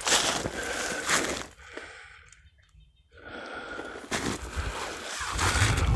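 A hiker's heavy breathing and the crunch of his snowshoe steps in snow. The sound drops away to near silence for about two seconds, starting about one and a half seconds in, then picks up again.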